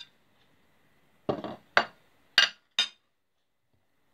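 Metal spoon clinking against a ceramic bowl: four sharp, ringing clinks in about a second and a half, the first a fuller, duller knock.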